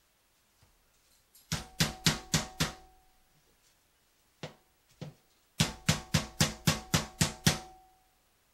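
Meat mallet pounding boneless chicken breast under plastic wrap on a plastic cutting board to flatten it: a quick run of about five blows, two single blows, then a longer run of about eight at roughly four a second, each blow with a short ring.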